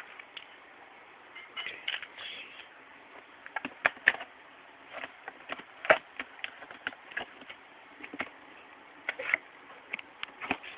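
Packaging being handled while a laptop is unboxed: irregular clicks, taps and short rustles of cardboard and plastic, with one sharper knock about six seconds in.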